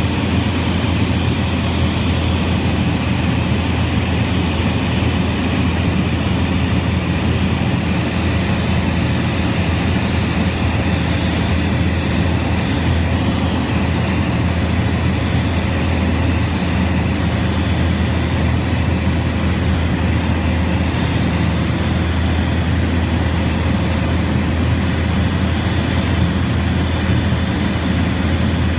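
Scottish Aviation Bulldog's four-cylinder Lycoming engine and propeller droning steadily in flight, heard from inside the cockpit, with a low, even hum and no change in pitch or power.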